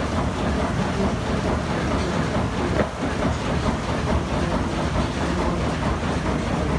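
An old steamboat's engine room machinery running, a dense steady mechanical clatter over a heavy low rumble.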